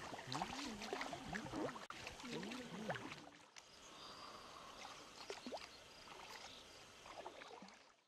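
Faint voices and water sloshing around an inflatable boat on a river. About three and a half seconds in the sound cuts to quieter river ambience with scattered small splashes.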